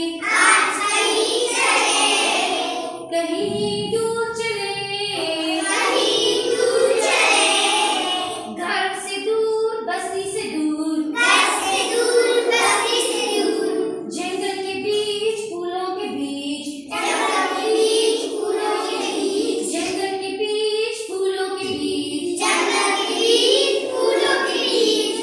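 A group of young children singing a rhyme together in unison, in short phrases with brief pauses between them.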